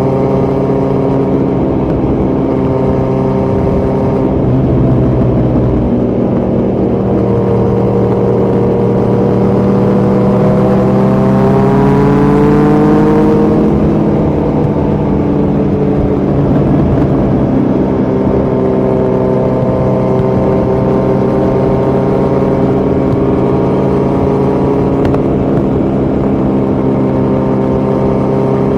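Kawasaki Z900's inline-four engine running through a Yoshimura muffler and Delkevic headers with no dB killer, at steady revs while riding. About eight seconds in the revs climb for several seconds, then drop back and settle steady again.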